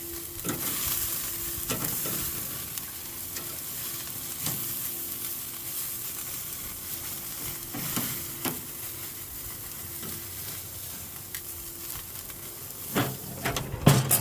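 New York strip steaks sizzling over a hot charcoal fire, a steady hiss with scattered pops and crackles as the freshly flipped side sears. A few louder knocks near the end.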